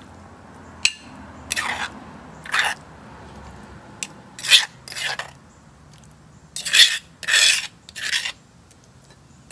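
Steel spoon scraping ground gongura paste out of a stone mortar, in about eight short, separate scrapes.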